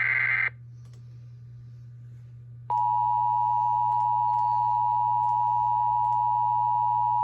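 The last burst of an Emergency Alert System SAME header, a harsh digital data screech, ends about half a second in. After two seconds of low hum, the steady EAS attention tone begins and holds without break.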